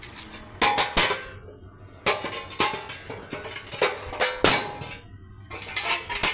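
Steel parts of a rice mill machine under construction clanking and knocking: a string of about nine irregular sharp metallic hits, some ringing briefly.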